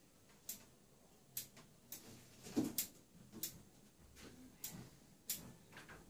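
Small twigs being pruned from an elm bonsai forest: a series of about eight sharp snips and snaps, the loudest about two and a half seconds in.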